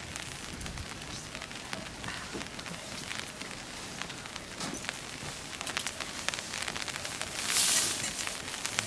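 Light rain falling, with many scattered drops ticking, and a brief louder rustling hiss near the end.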